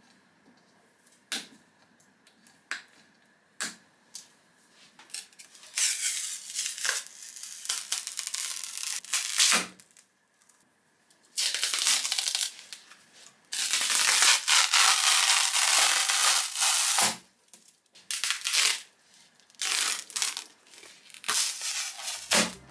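Clear plastic mold sheets being cut with nippers, a few sharp snips, then pulled and peeled off a cured resin block in several long stretches of tearing, crinkling noise from about six seconds in.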